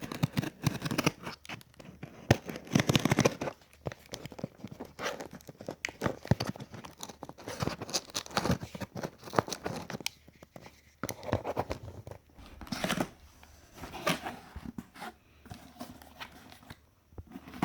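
Cardboard box and plastic packaging being opened and handled by hand: irregular rustling, tearing and crinkling with scattered clicks and knocks.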